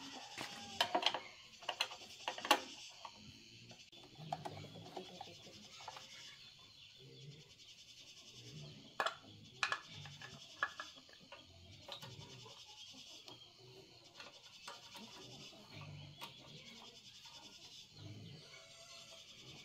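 Scattered sharp clicks and light metal knocks from hand work on a small air compressor's pump head, with a few louder clicks early on and again about halfway through, over a steady high hiss.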